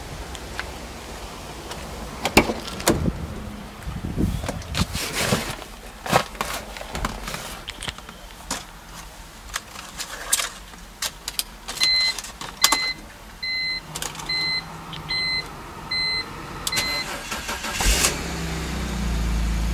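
Clicks and knocks of the car's door and cabin being handled, then a dashboard warning chime beeping at an even pace, about every three quarters of a second, for several seconds. Near the end the 2005 BMW 325Ci's 2.5-litre inline-six cranks, catches and settles into a steady idle.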